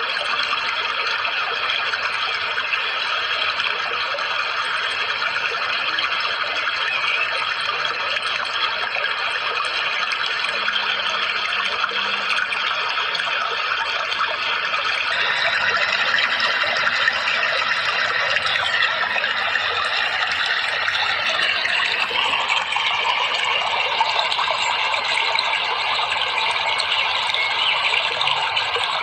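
Continuous rushing water, an even steady noise, with a faint steady high tone in it that drops out about halfway and returns later.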